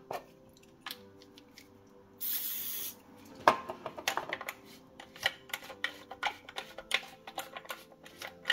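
A short hiss of Ceragol lubricating oil from an aerosol spray can, under a second long, about two seconds in, applied to the worm drive of a Siemens EQ500 brew group. From about three and a half seconds on it is followed by a quick run of plastic clicks and rattles as the brew group's gear mechanism is worked by hand.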